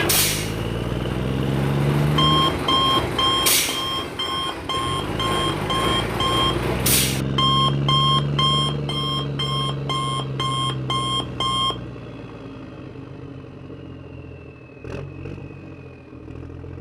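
Toy truck's electronic reversing beeper sounding a steady run of short beeps, about two to three a second, over a low engine-like hum that rises and falls. The beeping stops about twelve seconds in, leaving a fainter hum and a couple of light knocks.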